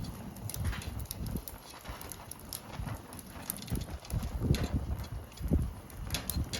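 Wood fire with firewood knocking and crackling: irregular sharp clicks and dull knocks, the loudest about four and a half and five and a half seconds in.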